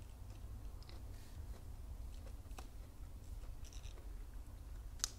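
Crisp clicks and crackles from magnolia petals being handled and bitten, with one sharp crunch near the end, over a low steady hum.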